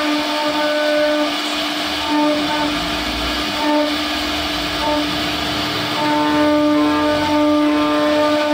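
Silver Ring Champion SR-1325 CNC router's spindle running as its bit carves a relief pattern into wood: a steady whine of several held tones over a rasping cutting noise. A second, pulsing tone joins about six seconds in.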